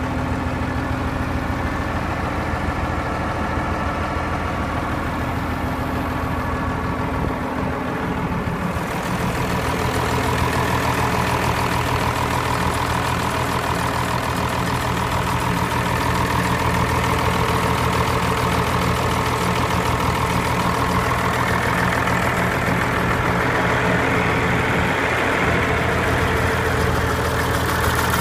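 John Deere 544 wheel loader's diesel engine running steadily at idle. About eight seconds in a higher hiss joins and the sound grows a little louder.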